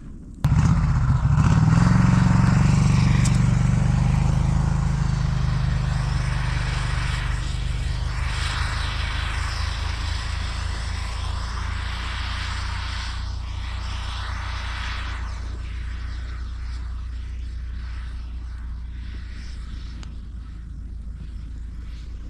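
Buran snowmobile's two-stroke engine revving up suddenly about half a second in and pulling away, its sound fading slowly as it drives off across the ice.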